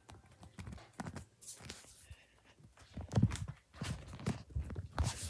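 Footsteps and handling knocks as a tablet is carried through a room: faint clicks at first, then a run of soft irregular thumps, about two a second, from about three seconds in.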